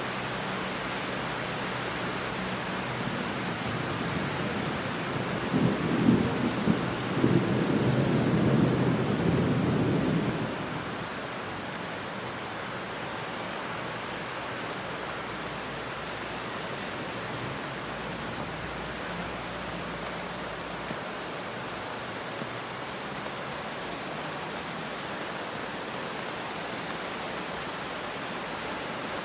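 Heavy rain falling steadily on a wet road and trees, with a rumbling roll of thunder from about five seconds in that swells, peaks around six to nine seconds and dies away near ten seconds, leaving the steady rain.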